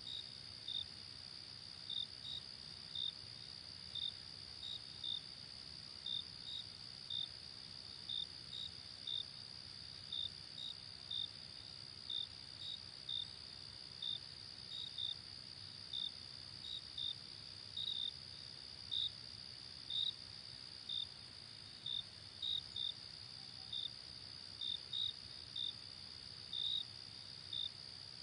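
Crickets chirping: a steady high insect trill with short separate chirps over it, about one or two a second and unevenly spaced, above a soft even hiss.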